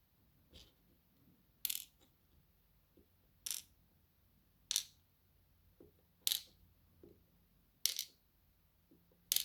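Small metal lock key pins dropped one at a time into a pinning tray, six clear clinks about a second and a half apart after a faint first tick.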